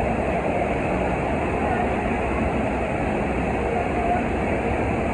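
Steady rushing of water pumped in a thin sheet up a FlowRider's wave ramp.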